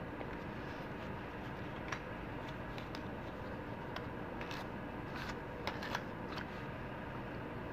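A scraper drawn across a metal nail-stamping plate, with short scrapes and small clicks of the tools, most of them between about two and six and a half seconds in, over a steady room hum.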